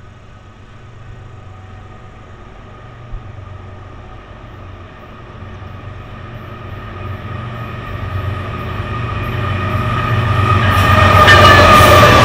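Westbound BNSF intermodal train led by three GE diesel locomotives (ES44C4, Dash 9-44CW, ES44C4) approaching, its engine sound growing steadily louder. Near the end the lead locomotive passes close by and the sound peaks, with wheel and rail clatter.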